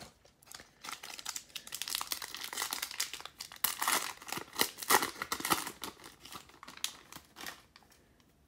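Foil wrapper of a 2019 Panini Prizm football card pack crinkling and tearing as it is ripped open by hand: a dense run of crackles that stops shortly before the end.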